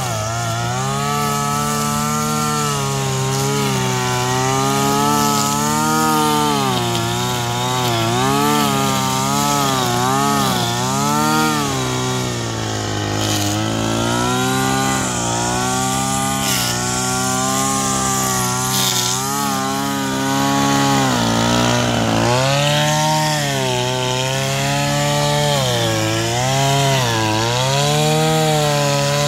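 Small two-stroke petrol engine of a Titan 26cc multi-tool strimmer running, its pitch rising and falling over and over as the throttle is worked while cutting.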